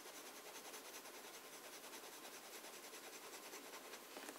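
Near silence: a faint, even hiss of a fountain pen nib rubbing back and forth on paper as it fills in a patch of ink.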